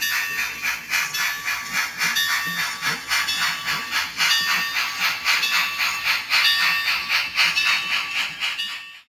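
Steam locomotive chuffing: rhythmic bursts of hissing exhaust, about three or four a second, cutting off suddenly near the end.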